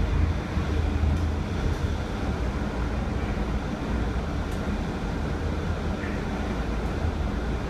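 Mercedes-Benz OC500LE city bus heard from inside the cabin while driving: the steady low rumble of its 12-litre OM457hLA straight-six diesel, mixed with road noise.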